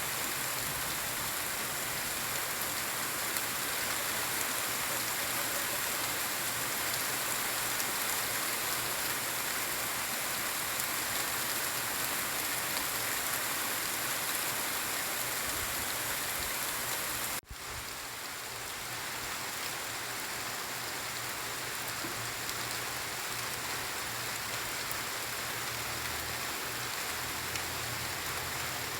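Steady rain falling and pattering on surfaces, an even hiss. About seventeen seconds in it cuts out for an instant, then carries on a little softer.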